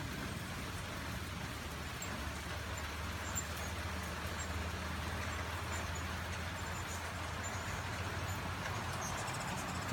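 Steady rain falling, with faint high chirps of hummingbirds now and then.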